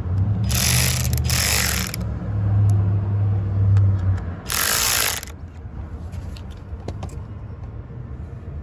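Tool driving in the small T10 Torx screws on a car door lock actuator's cover: two spells of mechanical ratcheting and whirring, the first about a second and a half long and a shorter one about four and a half seconds in, over a low steady hum, then only a few small clicks.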